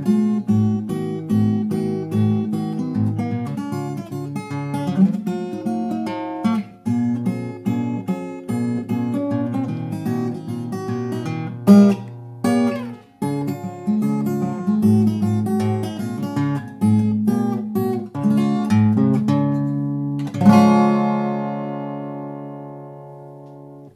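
Martin 000-42 steel-string acoustic guitar played fingerstyle: a ragtime piece with bass notes under a melody line. The piece ends on a final chord struck about 20 seconds in and left ringing until it fades away.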